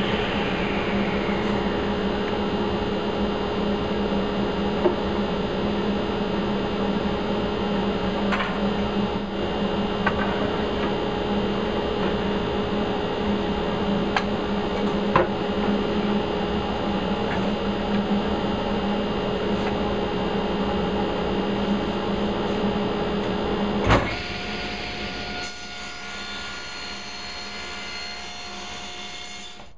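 Steady drone of a running shop machine, broken by a few light knocks of wooden strips being handled. About 24 seconds in there is a louder knock, and the drone drops to a quieter one of a different pitch.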